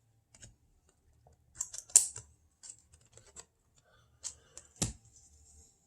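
Trading cards being handled and flipped through: scattered light clicks and rustles, the sharpest about two seconds in and again near five seconds.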